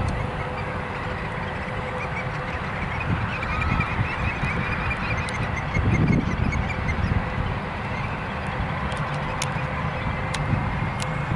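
Distant rumble of a Boeing 747-436's four jet engines as the airliner rolls out on the runway after landing, with a faint steady whine above it. The rumble swells briefly about six seconds in.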